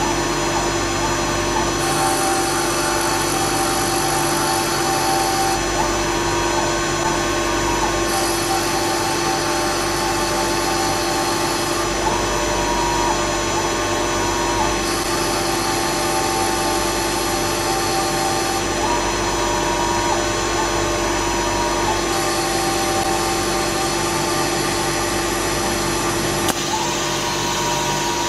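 EagleTec EA-T6015A automatic CNC wood lathe running its repeating cycle on turkey locator call mouthpieces: a steady machine hum, with a higher whine that comes and goes in stretches of about four seconds, repeating roughly every seven seconds.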